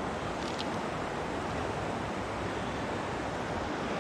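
Steady rush of a flowing river, with one light click about half a second in.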